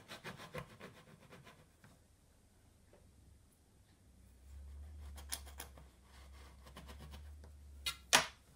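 A round metal pastry cutter pressed and worked through rolled dough on a worktop, giving clusters of small clicks and scrapes in the first second or so and again about five seconds in. A sharp knock near the end is the loudest sound.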